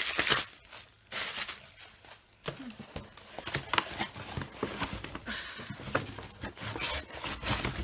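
Cardboard box and plastic packaging being handled: irregular rustling and crinkling with scattered sharp clicks.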